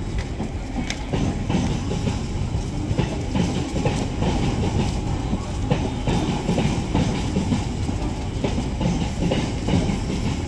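Mumbai suburban electric multiple-unit local train running along the tracks: a steady low rumble with scattered sharp clicks of the wheels on the rails.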